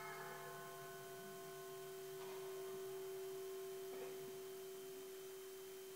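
A faint, single held musical tone, steady in pitch, with its higher overtones dying away about four seconds in while the fundamental rings on. There are faint small knocks about two and four seconds in.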